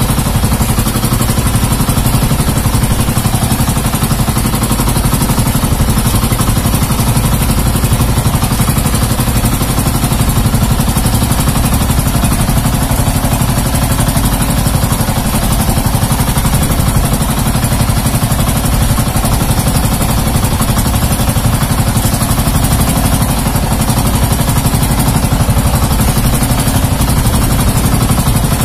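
Motorized outrigger fishing boat's engine running steadily at a constant speed, loud and close, with an even hiss over it and no change in pitch.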